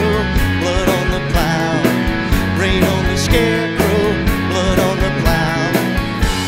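Country-rock band playing an instrumental passage of their song: a lead line with pitch bends over a steady drum beat and bass.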